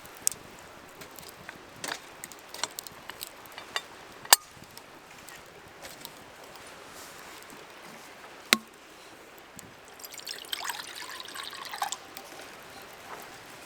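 A few sharp clicks and knocks, then liquid poured into a container for about two seconds, near the end.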